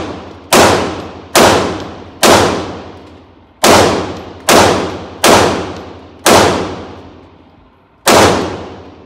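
9mm semi-automatic pistol fired eight times in a steady string, about one shot a second with a longer pause before the last. Each report rings on with a long echo in an indoor shooting range.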